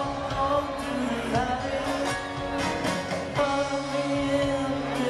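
A string band playing live, with fiddle, acoustic guitars and drums and a voice singing over them.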